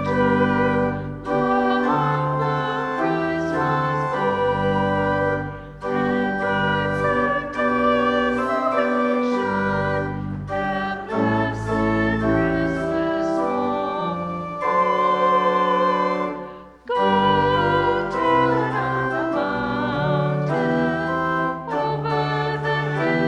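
Organ playing sustained chords, with two short breaks between phrases about six and seventeen seconds in.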